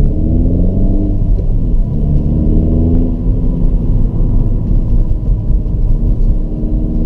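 Kia cee'd GT's 1.6-litre turbocharged four-cylinder engine under hard acceleration, heard from inside the cabin. The engine note climbs in pitch, drops at an upshift about two seconds in, then climbs slowly again.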